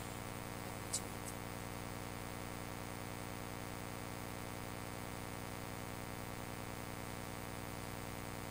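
Steady electrical mains hum with a faint buzz, and one short, faint tick about a second in.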